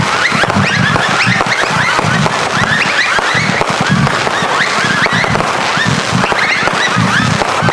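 Several consumer firework cakes firing together, a continuous loud wall of crackling packed with many overlapping short whistles that rise in pitch.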